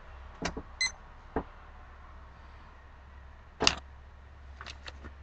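A few sharp clicks and knocks from a small digital timer being handled and its buttons pressed, with one short high electronic beep about a second in; the loudest knock comes near the end.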